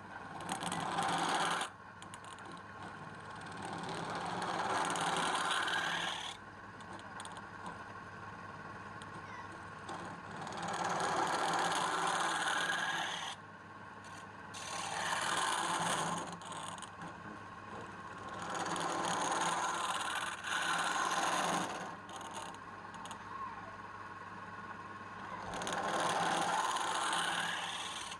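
Wood lathe running with a steady low hum while the spinning wood is worked in repeated scraping passes, each a hiss that swells and fades over two or three seconds, about eight of them.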